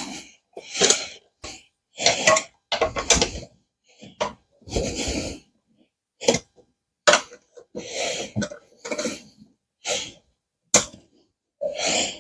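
Gaming chair parts being handled and fitted during assembly: about a dozen short knocks, clatters and rustles in quick succession, with silent gaps between them.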